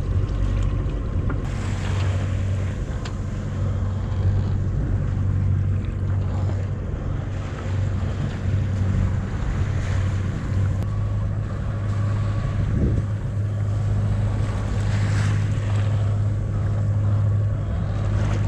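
A sailing yacht's engine running steadily under motor, a low even hum, with water rushing past the hull and wind on the microphone.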